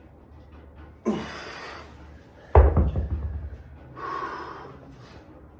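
A weightlifter breathing hard and straining through a heavy 100-pound dumbbell snatch. A sharp breath comes about a second in, a sudden loud burst about two and a half seconds in is the loudest moment, and another hard breath follows near four seconds.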